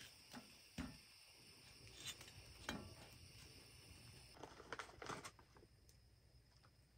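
Near silence, broken by a few faint, short taps and clicks as bread slices and a griddle pan are handled, with a small cluster of clicks about five seconds in.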